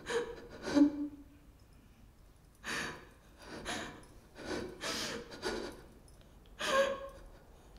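A person breathing hard in short, ragged breaths and gasps, about eight in all, with a loud voiced gasp about a second in.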